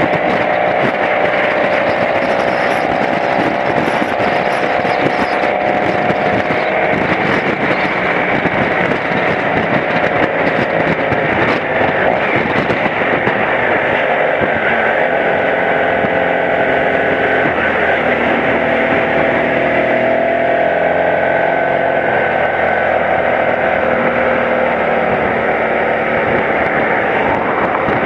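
BMW F700GS parallel-twin engine running under way, its pitch slowly rising and falling with the throttle through the bends, under steady wind noise on the microphone.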